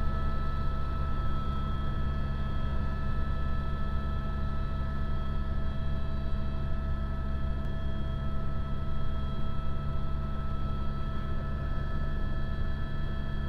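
Helicopter in steady flight, heard from inside the cabin: a constant low rotor drone with a steady whine above it.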